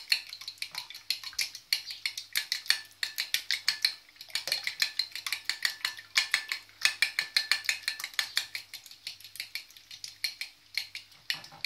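A fork beating eggs in a ceramic plate: quick, even clinks of the fork against the plate, about four or five a second, with a short break about four seconds in.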